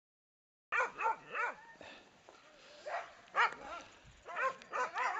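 Harnessed sled dogs barking and yipping in short, excited bursts. The barking starts abruptly about a second in and comes in several clusters.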